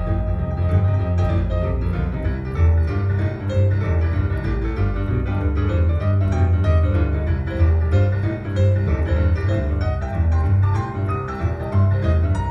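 Recorded piano music with a strong, deep bass line, played back through a pair of Tannoy XT8f loudspeakers and picked up by microphones in the room.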